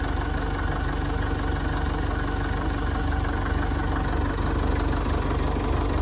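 Forklift engine running steadily as the forklift lifts a load.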